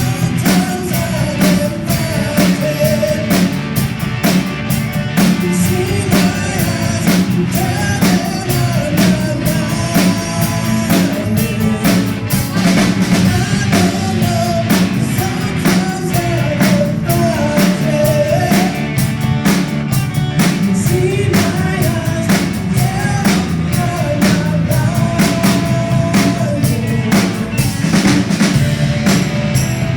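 Live band playing a song, with a drum kit keeping a steady beat under bass and a wavering lead melody line.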